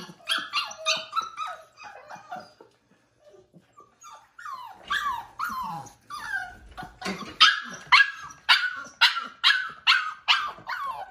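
A 5-week-old pitbull-husky mix puppy yipping and barking in quick runs of short, high calls, with a short pause early on, then some longer sliding calls and about two barks a second to the end. These are protest calls from a puppy unhappy about being kept inside.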